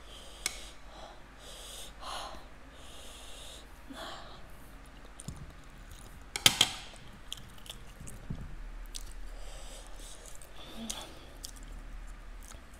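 A person eating double-spicy instant noodles, chewing and blowing out repeated short hissing breaths through pursed lips against the chilli heat. One sharp click comes about six and a half seconds in.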